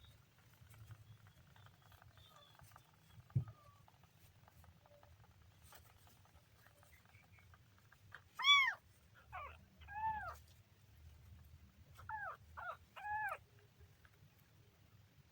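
A kitten meowing: six short high-pitched meows, each rising and falling in pitch, in two groups of three, starting about halfway through. A soft thump comes earlier.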